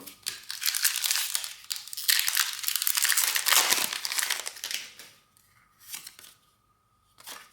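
Foil wrapper of a Pokémon TCG booster pack crinkling and tearing as it is opened, a dense rustle that dies away about five seconds in.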